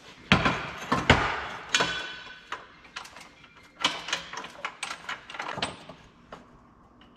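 Irregular metal clanks and knocks from a steel bar being set into the vise of a small metal-cutting bandsaw and the saw head being handled, with a short metallic ring about two seconds in; the saw is not running.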